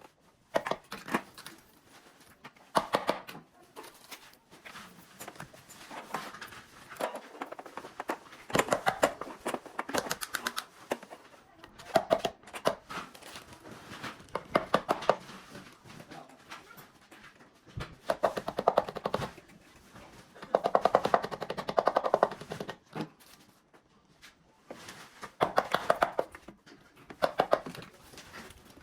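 Irregular clicking, tapping and knocking of parts being handled and fitted by hand, coming in uneven clusters.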